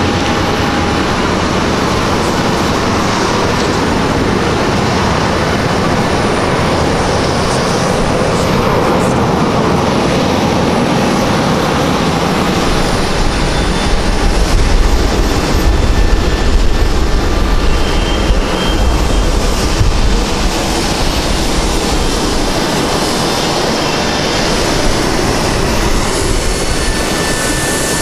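Steady jet aircraft noise, with an uneven low rumble that gets louder for several seconds around the middle.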